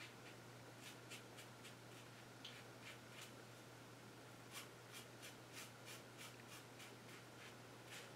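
Faint, short scratchy strokes of a 1985 Gillette Black Beauty adjustable double-edge safety razor cutting stubble on the chin and jaw, about two or three strokes a second, coming faster in the second half, over a steady low hum.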